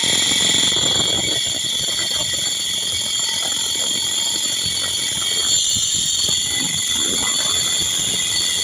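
Electric drill running continuously with a steady high whine while drilling out holes in a metal chain sprocket.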